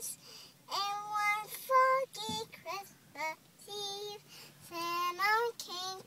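A young girl singing in a high child's voice, a string of short sung phrases with brief breaths between them.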